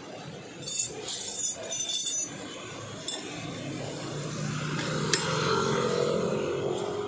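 Steel wrenches clinking as they are handled on the pavement and fitted to a scooter's front axle nut, several light metallic clinks in the first two seconds and a single sharp click about five seconds in. A motor vehicle's steady hum swells in the second half.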